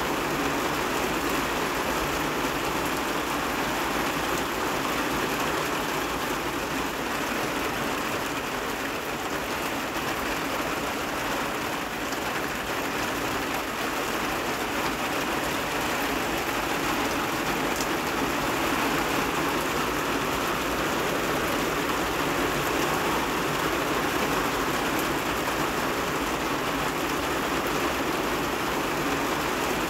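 Steady rain falling, a continuous even hiss with no let-up.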